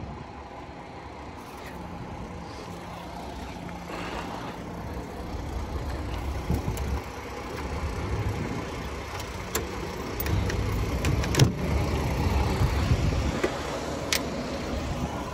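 Volvo truck cab door being opened by hand: a few sharp clicks from the door handle and latch in the second half, over a low, irregular rumble of handling noise.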